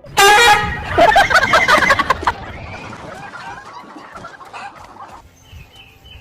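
Loud animal calls: one sharp cry, then a rapid flurry of short squawking calls that fades after about two seconds.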